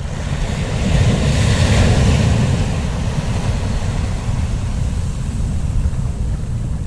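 Wind buffeting the microphone with a steady low rumble, and sea surf washing in: a broad hiss that swells about a second in and slowly fades.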